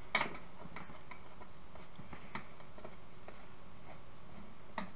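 Irregular small clicks and taps of a screwdriver and parts being handled while screws are taken out of an old CCTV camera's housing. The loudest clicks come just after the start and near the end, over a steady faint hum.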